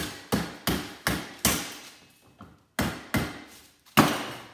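Hammer blows on a microwave part clamped in a bench vise, struck to knock it loose. There are five quick sharp strikes, each with a short ring, then a pause of about a second and three more, the last the loudest.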